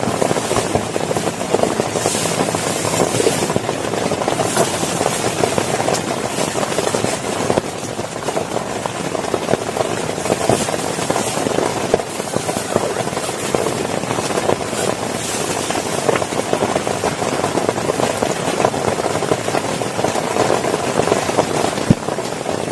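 Heavy rain falling steadily as a dense, even patter of drops.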